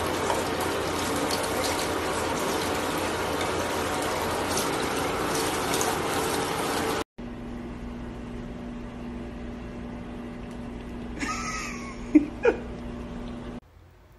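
Handheld shower head spraying water steadily onto a German Shepherd for about seven seconds. It cuts off abruptly, leaving a quieter steady hum with two short, sharp pitched sounds near the end.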